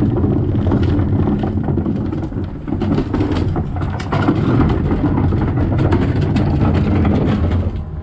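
Pickup truck engine idling close by, a steady low hum, with scattered knocks and scrapes from plastic garbage cans being handled.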